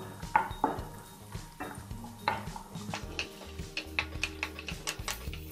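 Wooden spatula tapping and scraping against a non-stick kadai while stirring cashews and raisins in ghee. The taps come faster in the second half.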